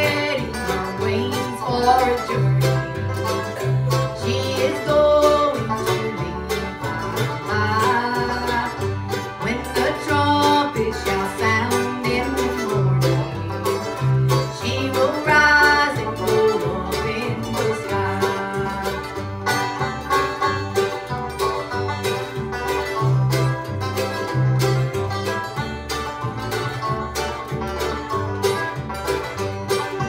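Bluegrass band playing live: a woman singing over strummed acoustic guitar and mandolin, with an upright bass plucking a steady beat that alternates between two notes.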